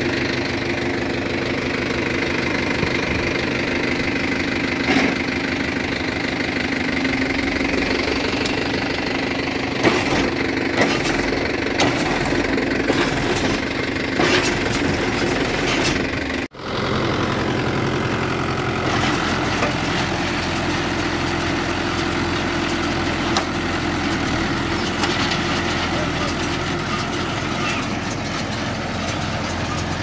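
Mahindra Yuvo 575 tractor's four-cylinder diesel engine running steadily while driving an Aambal straw baler through the PTO; the baler's chains and sprockets clatter. Sharp clicks and knocks come from the baler's mechanism between about ten and sixteen seconds in. The sound drops out for a moment near the middle.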